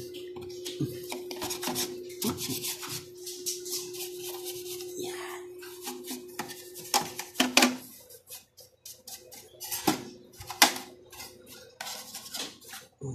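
A stiff brush scrubbing dust off an amplifier's circuit board and aluminium heatsink fins: repeated scratchy strokes and clicks at irregular intervals, with a steady low hum through the first half.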